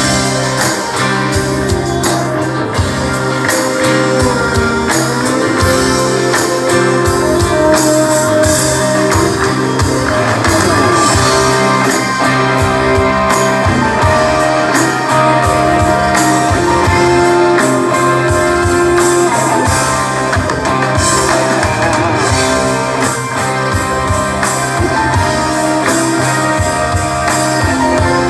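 Live rock band playing an instrumental passage with no vocals: an electric guitar carries the melody over acoustic guitar, keyboards and drums.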